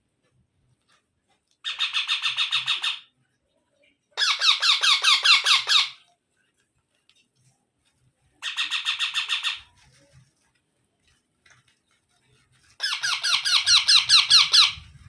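Rose-ringed parakeet calling in four bursts of rapidly repeated notes, about ten a second. Each burst lasts one to two seconds, with a few seconds' pause between them.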